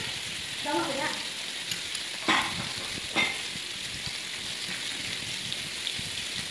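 Meat and seafood sizzling steadily on a tabletop barbecue grill plate, with two sharp knocks about two and three seconds in.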